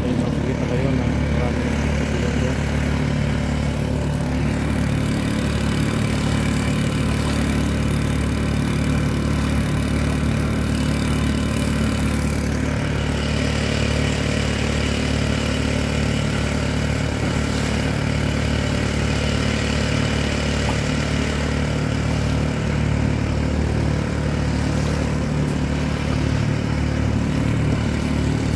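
Small four-stroke gasoline outboard motor running steadily at a constant speed, pushing a kayak across open water, with a haze of wind and water noise over it.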